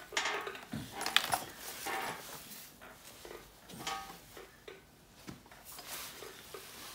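Scattered metallic clinks and knocks as an Alfa Romeo 159's gearbox casing is rocked and pulled by hand to free it from the engine block, with the sharpest knock about a second in.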